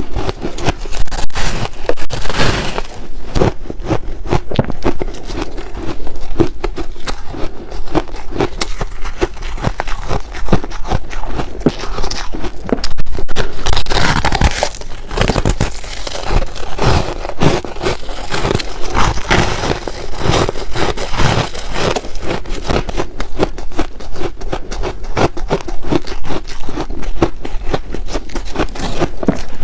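Close-miked crunching and chewing of refrozen ice: a dense, irregular run of sharp cracks and crunches as the ice breaks between the teeth.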